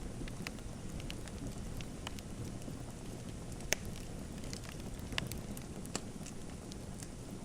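Wood fire crackling in a fireplace: a steady low rumble of the flames with scattered sharp pops, the loudest about halfway through.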